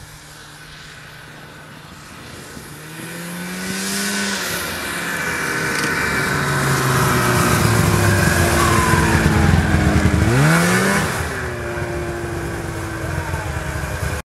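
Ski-Doo Summit 670 snowmobile's two-stroke engine driving past. It grows louder as the sled approaches and is loudest as it goes by about ten seconds in, where the engine note drops sharply and climbs again. It then runs on more quietly as it pulls away.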